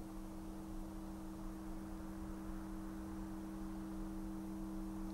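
Steady low electrical-sounding hum of two constant tones over faint hiss, with no other event.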